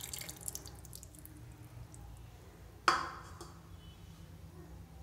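The last of a stream of coconut milk pouring into a pressure cooker of chicken masala tails off into drips over the first second. About three seconds in comes a single sharp clink with a short ring, a vessel knocking against the pot.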